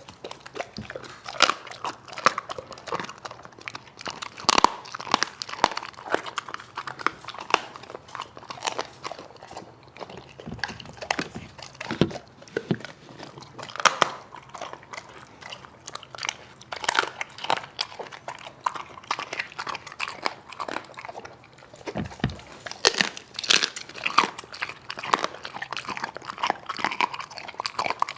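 A dog eating greedily, chewing and crunching its food with many irregular, sharp bites.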